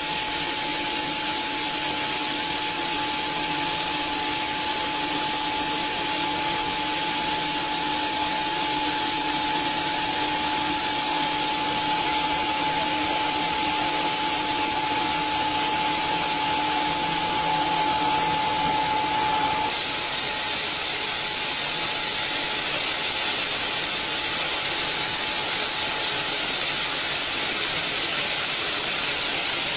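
Pneumatic grain conveyor running: a loud, steady rush of air like a big vacuum, with a steady whine that cuts off about two-thirds of the way through while the rushing goes on.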